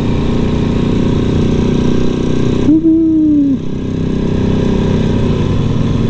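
Motorcycle engine running steadily under way on a winding road, with wind noise. About halfway through, a short steady tone sounds for about a second.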